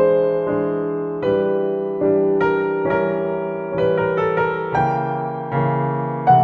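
Background piano music: slow, sustained chords and melody notes, each struck and left to fade.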